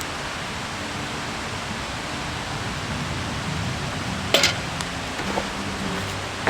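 Steady hiss with one sharp snap about four seconds in.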